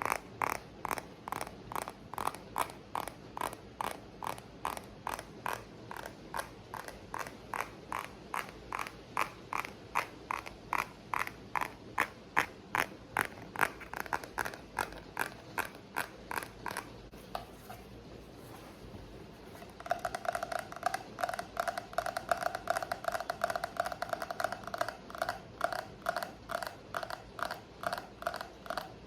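Quick, even ASMR tapping on objects, about three taps a second, over a steady rain background. The tapping stops for a few seconds past the middle, then resumes with a brighter ringing tone, as on a more resonant object.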